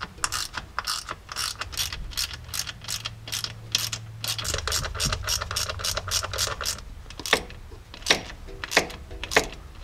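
Hand ratchet clicking in quick runs, about three or four clicks a second, as 10 mm bolts are backed out of a transfer case tail housing. The clicking thins out in the last few seconds.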